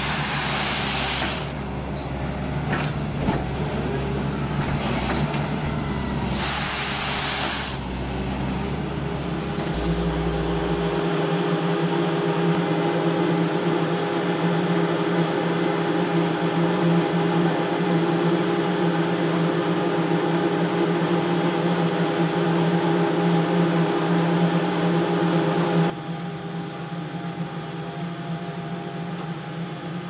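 Wheeled excavator's rotary broom attachment sweeping grit off asphalt over its diesel engine, a rough noisy scrubbing with stretches of hiss. About ten seconds in it gives way to the steady drone of a slipform concrete paver at work, with several steady hum tones, dropping in level near the end.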